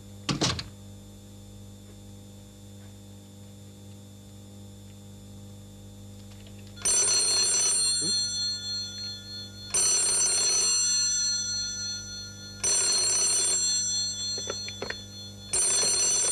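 Desk telephone bell ringing four times, each ring about a second long and about three seconds apart, starting some seven seconds in. A single thud just after the start.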